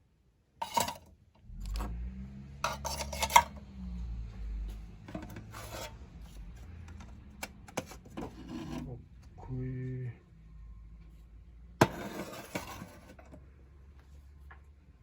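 Objects being handled and rubbed, with scraping, rustling and a few knocks and clinks like metal cookware or utensils being moved about. A single sharp knock comes about twelve seconds in.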